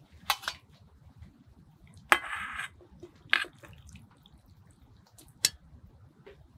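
Cookware being handled while food is warmed: a few sharp clinks and knocks of a utensil against a pot, with a half-second rush of noise about two seconds in.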